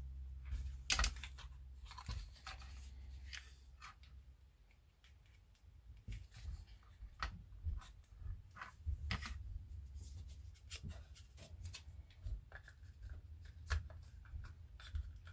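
Faint handling noise: scattered small clicks and taps of hard plastic model parts and a wiring connector being handled, with a sharper click about a second in.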